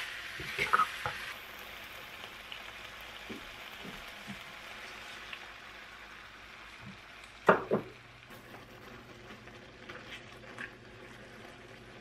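Shredded pork and vegetables sizzling in a nonstick pan while a wooden spatula stirs and scrapes. The sizzle settles down once the sauce goes in, with two sharp knocks in quick succession about halfway through.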